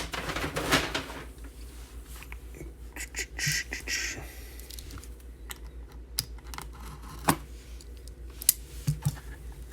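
Scattered clicks, taps and rustling of hands handling a sealed trading-card box and its packaging, with a short scratchy rustle about three and a half seconds in, over a low steady hum.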